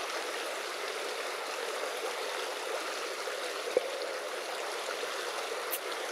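Steady rushing of flowing water, with one short knock a little under four seconds in.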